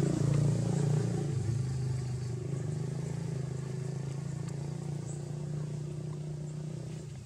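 Steady low hum of an engine running, louder for the first second or so and then holding a little quieter.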